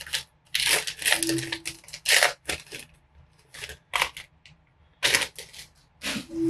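Foil wrapper of a trading-card pack crinkling and tearing as it is pulled open by hand, then the stack of cards sliding out, heard as a string of short rustles.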